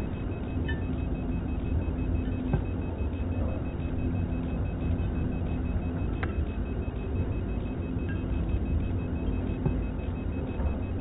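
Milling machine running steadily under power feed, a constant low hum with a few sharp clicks scattered through it.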